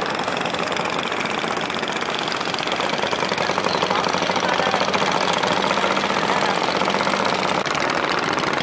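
A small boat engine running steadily with a fast knocking beat, getting a little louder about three seconds in.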